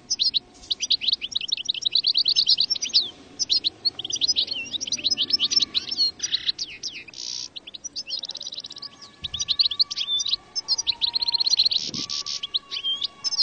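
European goldfinch song: quick high twittering chirps and liquid trills, almost unbroken, with a few short pauses and a couple of brief buzzy notes in the middle.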